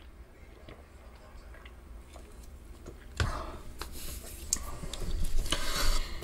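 Trading cards being flipped through by hand, with faint clicks and slides. About three seconds in, louder rustling and crinkling start as a pack wrapper is torn open and its cards are pulled out.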